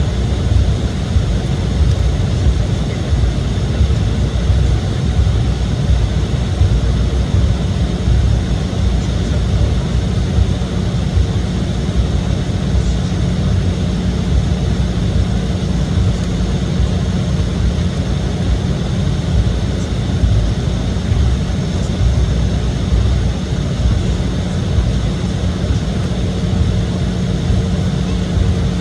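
Steady engine drone and low rumble inside the passenger cabin of an Embraer E175 regional jet, its GE CF34 turbofans running evenly with a constant hum.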